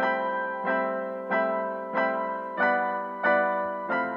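Piano music, a chord or note struck about every two-thirds of a second, each ringing and fading before the next.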